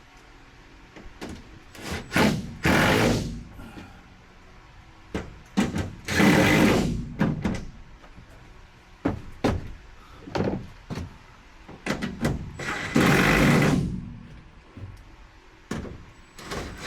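Impact driver running a nut with lock washer onto a roof-rail bolt, in three bursts of about a second each, with small clicks and knocks of handling between them.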